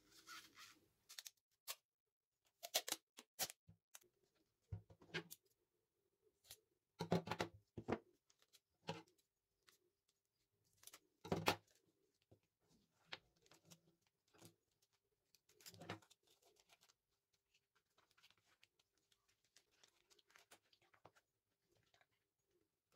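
Clear cello tape and paper being handled: faint, scattered crinkles and clicks as tape is pulled, cut and pressed onto the paper, with a few louder crackles spread through.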